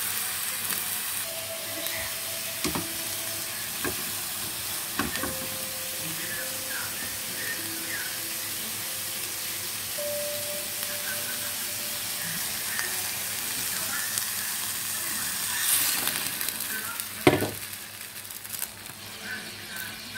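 Pieces of pork belly sizzling as they fry in a nonstick pan, with a few knocks of a utensil against the pan. Near the end there is a louder hiss and a sharp knock, and the sizzling then quietens as water goes into the pan.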